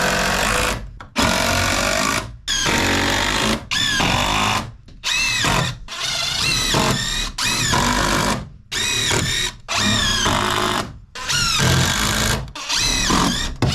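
Power drill running in about a dozen short bursts of roughly a second each, its motor pitch rising and falling within each burst.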